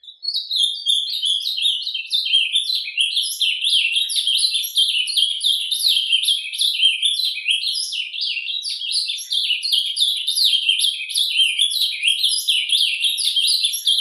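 Ultramarine grosbeak (azulão) singing its surdina, the soft continuous warbling song: a long, unbroken stream of quick down-slurred chirping notes, starting abruptly out of silence.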